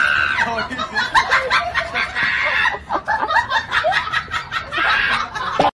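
Laughter: snickering and chuckling in quick, choppy bursts that cut off suddenly near the end.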